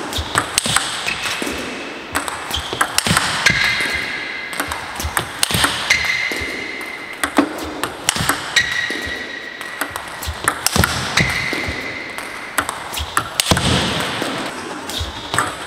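Table tennis balls clicking sharply off rubber paddles and bouncing on the table in a quick, steady run of hits, as balls fed from a basket are returned with hard forehand drives. A few short high squeaks come between the hits.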